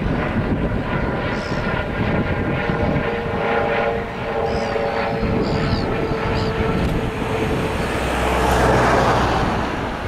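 Wind buffeting the microphone under the steady drone of a propeller aircraft's engine, which swells near the end. A few short high chirps come through in the first half.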